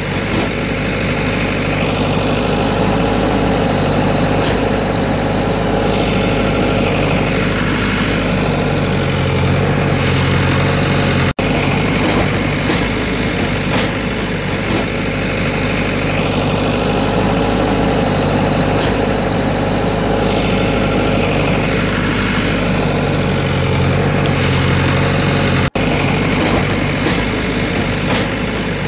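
An engine idling steadily, a looped recording that repeats about every fourteen seconds and cuts out for an instant at each restart.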